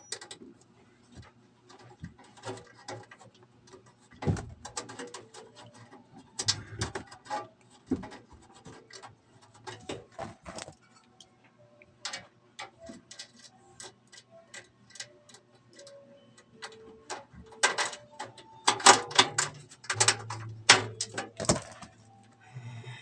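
Irregular clicks, taps and light knocks of small hardware being handled and fitted into a PC case, with dense runs of sharp clicks near the end. A faint steady hum lies underneath.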